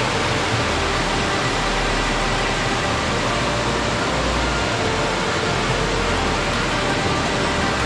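Waterfall water rushing and splashing in a steady, loud roar of noise, with a low rumble underneath.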